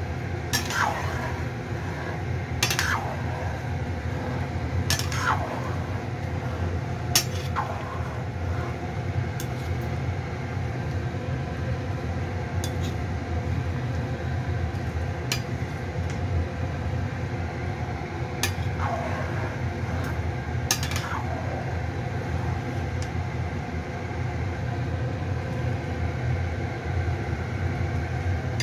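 A pan of dumplings boiling on a gas hob with a steady low rumble, while a metal ladle scrapes and knocks against the pan about six times, four in the first eight seconds and two more around twenty seconds in.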